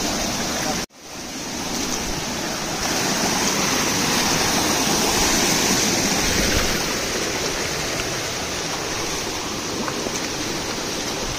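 Shallow mountain stream rushing and splashing over rocks, a steady hiss of running water. About a second in the sound cuts out abruptly and fades back in.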